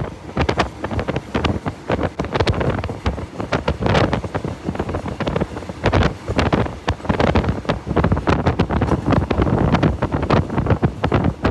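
A moving train with wind buffeting the microphone, and a dense, irregular clatter of knocks throughout.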